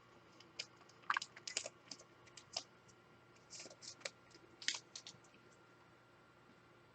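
A scattered run of light clicks and taps, about a dozen over four seconds, stopping about five seconds in.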